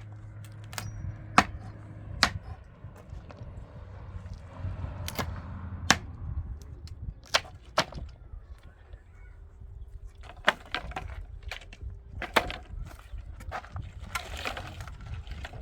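Building work: irregular sharp knocks and clacks of hard materials being struck or set down, about one every second or two, over a low steady rumble.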